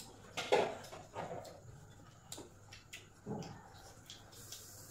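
Close-up eating sounds while eating by hand: a few short mouth noises from chewing and lip-smacking, the loudest about half a second in, with light clicks of fingers and a bowl against plates.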